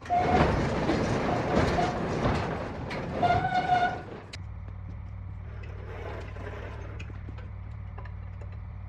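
Large overhead garage door opening, rattling along its track with a short squeal near the end. It stops suddenly about four seconds in, leaving a steady low hum.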